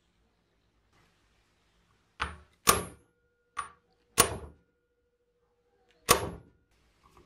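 Five sharp metal-on-metal strikes, each with a brief ring, in an uneven rhythm over about four seconds, from hammering on a driver seated in a seized screw on the old grinder's cast housing. A faint steady ring hangs between the last two strikes.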